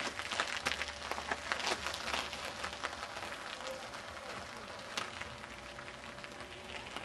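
Recumbent bicycle tyres crunching and crackling over loose gravel, fading as the bike rides away.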